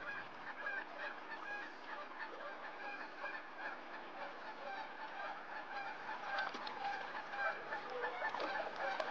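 Birds calling with many short, overlapping chirps and clucks over a steady hiss of flowing river water.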